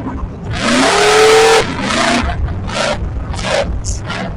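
Off-road 4x4 engine revving hard in repeated surges. The loudest, longest rev comes about half a second in, and shorter blips follow.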